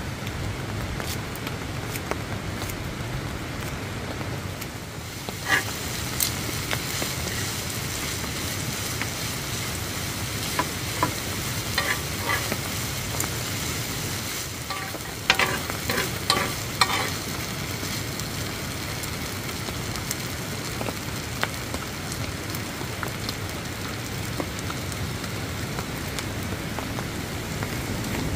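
Fried rice sizzling steadily on a round griddle pan over a portable gas stove, with intermittent clinks and scrapes of a metal spoon and tongs stirring it, busiest about halfway through.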